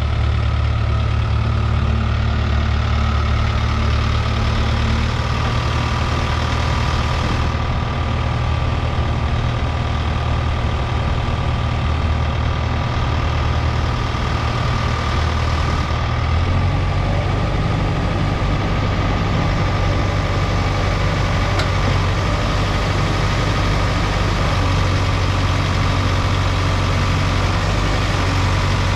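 Diesel engine of a 2020 Case 770EX-SS backhoe loader running steadily at idle, its low note shifting slightly about sixteen seconds in.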